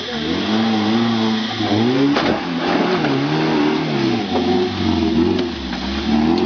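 Small Suzuki 4x4 (Maruti Gypsy type) engine revving hard as the jeep climbs a loose dirt slope. Its pitch rises and falls several times as the driver works the throttle.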